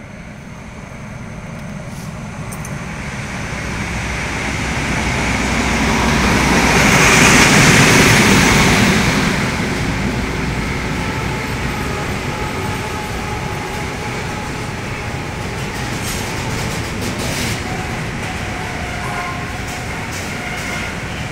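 A train passing on the tracks: its rumble builds to a peak about seven to eight seconds in, then eases and carries on steadily.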